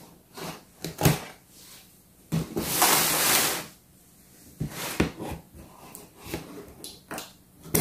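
A large cardboard box being handled and opened: scattered knocks and taps, a scraping rush lasting about a second as the box is slid and turned onto its side, then clicks of scissors cutting the tape near the end.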